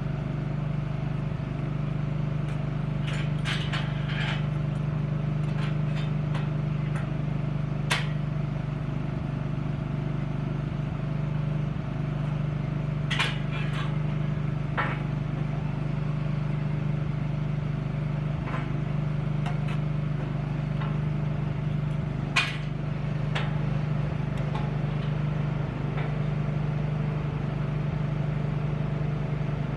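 Engine-driven welding generator running steadily at a constant speed, with a few sharp metallic clanks scattered over it.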